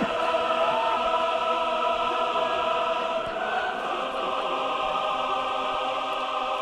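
Choral music: voices holding sustained chords, with the chord changing about halfway through.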